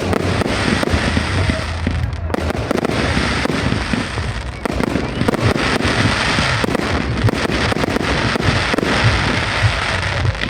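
Fireworks display: a dense, rapid barrage of bangs and crackling, with a couple of brief lulls about two and four and a half seconds in.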